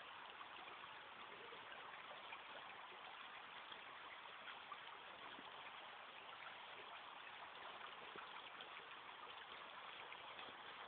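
Floodwater rushing steadily along a flooded street: a faint, even rush of moving water.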